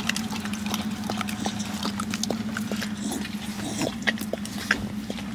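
A dog licking whipped cream out of a small plastic cup: quick, irregular wet licks and tongue smacks against the cup, over a steady low hum.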